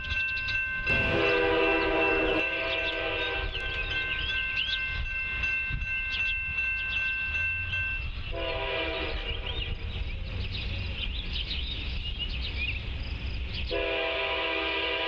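An approaching Amtrak passenger train sounding its air horn in long blasts, about three of them: the first starts about a second in, the next two come near the middle and just before the end. Birds chirp in the background.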